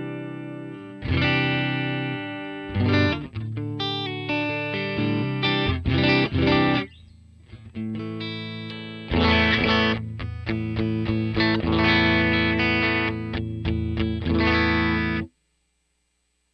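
Electric guitar played through a Vox AC30 amp simulation (STL Tones AmpHub): ringing chords and runs of picked single notes, with a quieter stretch in the middle. The playing stops abruptly near the end.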